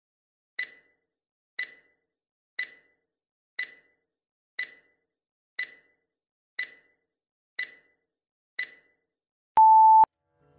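Quiz countdown-timer sound effect: nine sharp ticks, one a second, then a short loud beep as the clock reaches zero.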